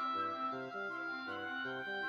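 Instrumental background music: a long held high melody note over short lower notes that step in a regular, repeating pattern.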